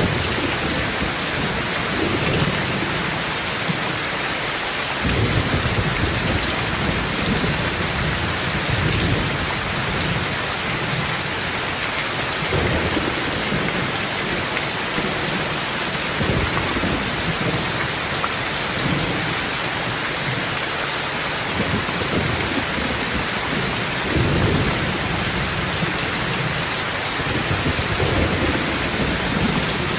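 Heavy rain falling steadily, with low thunder rumbling in and out several times.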